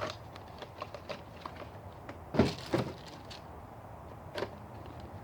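Scattered clicks and knocks of HeroClix plastic figures and their packaging being handled during unboxing, the loudest about two and a half seconds in.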